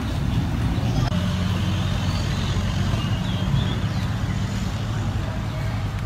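A steady, low engine drone running throughout, with faint voices in the background.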